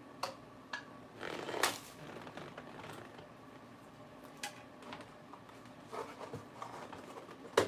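Food being handled during meal preparation: a few scattered sharp clicks and light taps, with a short rustle and a louder click about a second and a half in.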